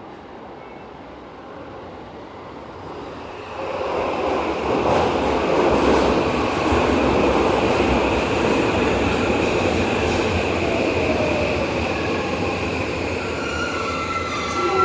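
Toei Asakusa Line subway train running along the station platform. Its rumble builds from about three seconds in and stays loud, with high steady squealing tones over it.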